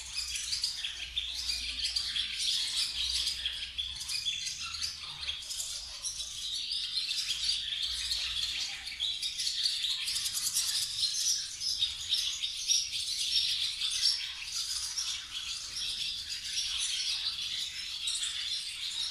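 Many small birds chirping continuously in a dense, high-pitched chatter.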